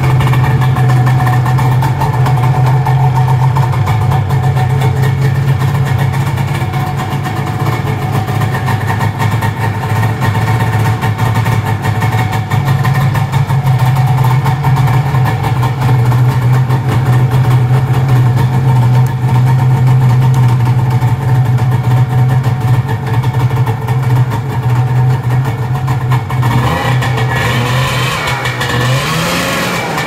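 Snowmobile engine idling steadily, still running because its kill switch has stopped working. Near the end the engine note wavers and shifts in pitch.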